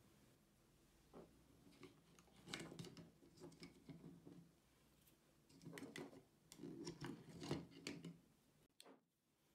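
Small handling sounds of AAA batteries being pried out of a headlamp's plastic battery compartment with a thin metal pick: faint clicks, scrapes and rattles, in two busier spells.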